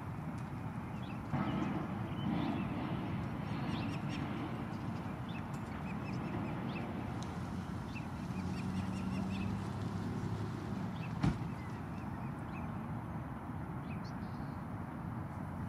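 Osprey calling: short, high chirps repeated in runs over a steady outdoor background noise, with a single sharp knock about eleven seconds in.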